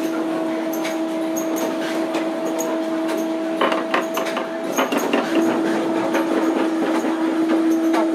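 Banknote sheet-processing machinery running with a steady hum and continual rapid clicking and clattering, and a burst of louder clacks about four seconds in.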